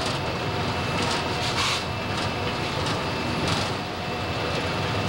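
Steady running noise inside a moving diesel locomotive's cab: the drone of the engine and wheels on the rails, with a couple of short rattles from the cab.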